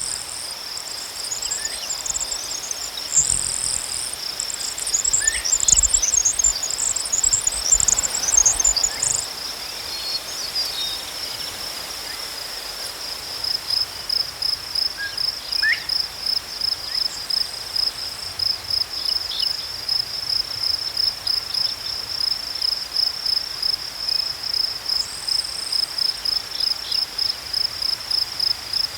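Crickets chirping: a steady high-pitched trill that settles into distinct, even chirps of about three a second from about halfway through. A higher, scratchy chittering runs alongside it for the first nine seconds or so, and briefly again near the end.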